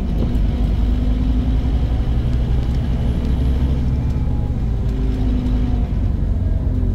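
Scania N230 bus's five-cylinder diesel engine running steadily with a low rumble, heard from on board.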